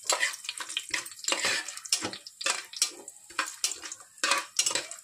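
Steel spatula scraping and tapping against the bottom and sides of an aluminium pressure cooker, a few strokes a second, while whole spices and bay leaves sizzle in hot oil.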